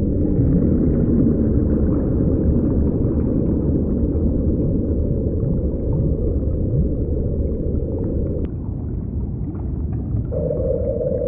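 Deep underwater rumble with low moaning calls that glide in pitch, like whale calls in a processed ocean recording. About eight and a half seconds in the rumble thins, and near the end a steady hum sets in.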